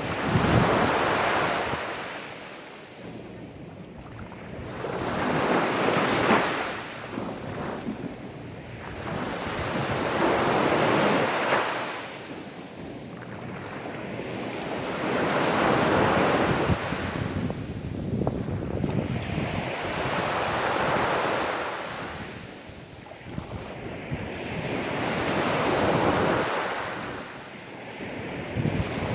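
Gentle sea waves washing onto a sandy beach, each swell rising and fading about every five seconds, with some wind on the microphone.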